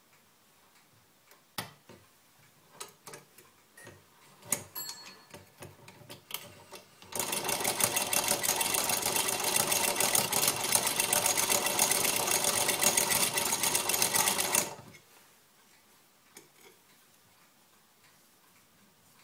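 Antique Muller 15 toy sewing machine running a seam in a fast, even clatter of needle strokes for about eight seconds, stopping abruptly. Before it starts there are a few scattered clicks and knocks as the cloth is set under the presser foot.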